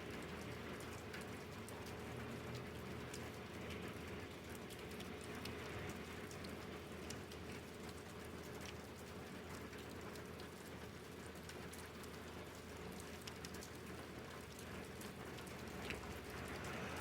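Steady rain falling, with many small drops ticking on surfaces, and a faint steady hum underneath.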